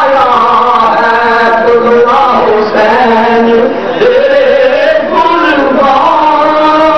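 A man chanting through a microphone in long, held melodic phrases, sliding between notes, with a short break about four seconds in before the next phrase starts.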